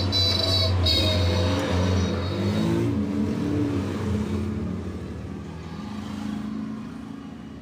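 A motor vehicle's engine running nearby, its pitch rising and falling as it revs, then fading away over the last few seconds. A high steady tone sounds over it in the first second.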